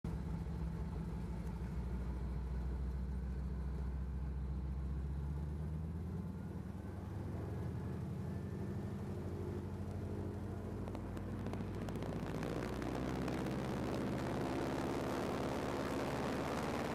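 Floatplane's propeller engine heard from inside the cockpit, running steadily with a low, even drone; about twelve seconds in it opens up, growing louder with a rising rush as power comes on.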